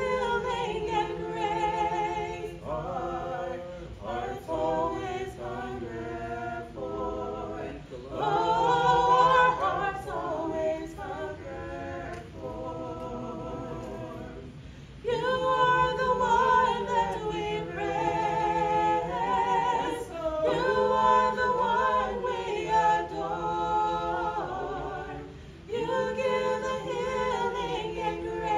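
A trio of two women and a man singing a sacred song unaccompanied, their voices in harmony, with a softer passage about halfway through before the singing grows louder again.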